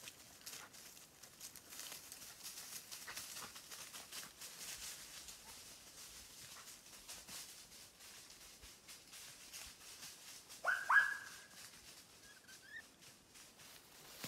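Faint rustling of grass and undergrowth. About eleven seconds in comes a single loud whistle that sweeps up and then holds one note for under a second, followed shortly by a fainter chirp.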